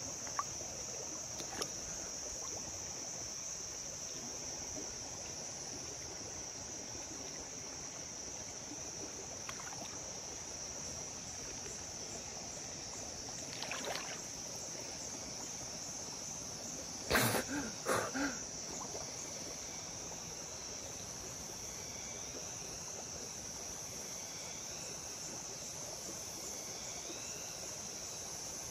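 Steady high-pitched drone of insects from the surrounding forest over the faint wash of the stream. A few brief splashes break through, one near the middle and a short louder cluster a little past halfway, as the man moves about in the water.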